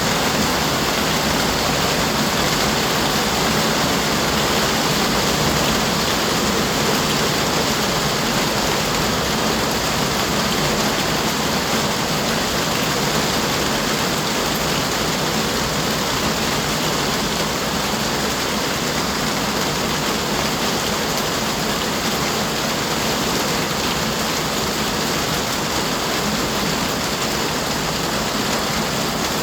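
Rain falling steadily, an even hiss that holds at the same level throughout, with no separate drops or other events standing out.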